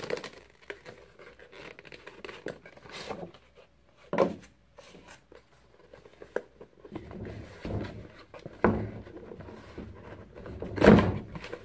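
Cardboard packaging being handled: a plain cardboard inner box is slid out of its printed outer box and its tight flaps are pried open, with scattered scrapes and rustles. A few sharper knocks stand out, one about four seconds in and the loudest near the end.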